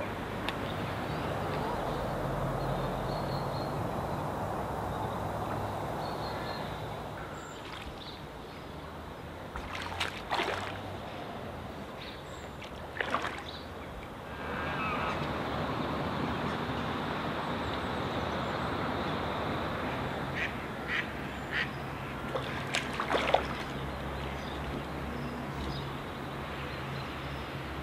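Ducks quacking in short calls now and then, with a cluster near the end, over a steady outdoor background with a low hum.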